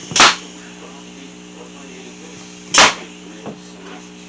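Pneumatic staple gun firing staples into pine fence-picket boards, two sharp shots about two and a half seconds apart.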